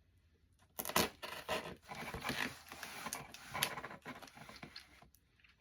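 Rustling and scraping of a package's contents being handled and rummaged through, with a few sharp clicks, starting about a second in and dying away near the end.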